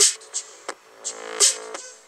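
Background music: sharp drum hits over held melodic notes, fading out near the end.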